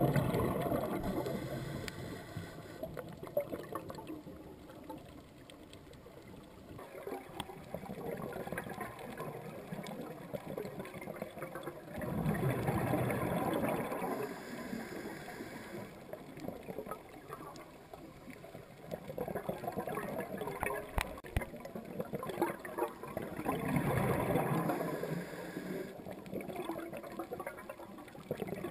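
Scuba regulator breathing underwater: three loud swells of exhaled bubbles about eleven seconds apart, with quieter water hiss between them.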